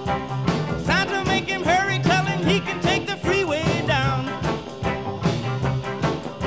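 Rock and roll music with a steady beat; a lead line slides up and down in pitch during the first half.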